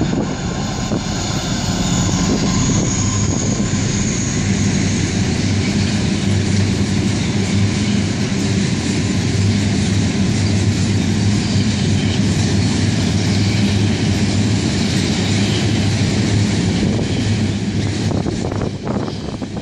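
Freight train with a diesel locomotive passing: a steady engine drone under the rumble and clatter of log-laden timber wagons rolling over the rails, with a few louder clanks near the end.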